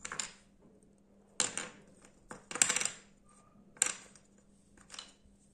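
Wooden alphabet puzzle pieces clacking against each other and onto a wooden tabletop as they are picked up and set down, in about six short clatters with gaps between them.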